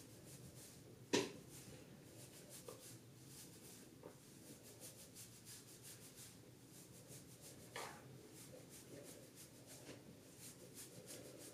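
Faint rubbing of hands working through hair, with a sharp click about a second in and a softer one near eight seconds.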